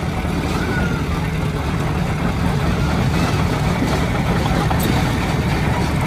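Heavy diesel construction machinery running steadily with a constant low rumble. A faint short chirp comes about a second in.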